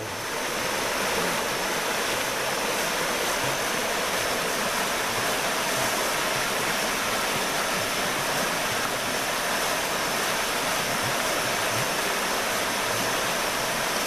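River rapids: water rushing over rocks in a steady, even rush.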